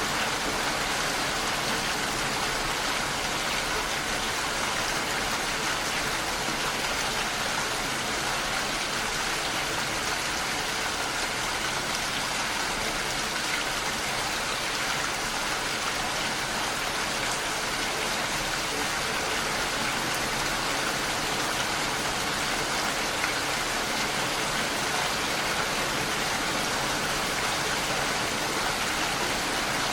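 Heavy rain falling steadily on a window, a dense even patter with no breaks.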